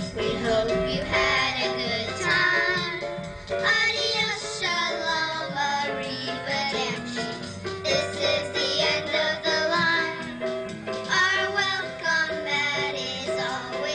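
A group of children singing a song together with a recorded instrumental backing track played over a PA speaker.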